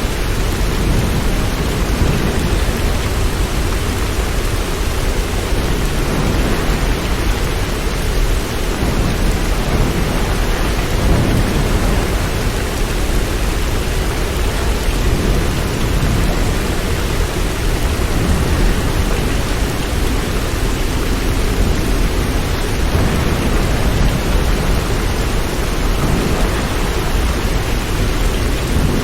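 Steady heavy rain, an even hiss over a deep low rumble that swells and eases every few seconds.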